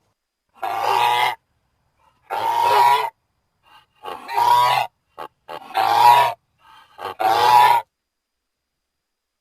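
Terror bird creature sound effect: five harsh, bird-like calls, each under a second long and about a second and a half apart, with a couple of short chirps before the fourth.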